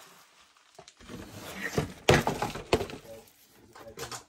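Crunching and clattering of household trash and debris, with several sharp knocks. The loudest knock comes about two seconds in.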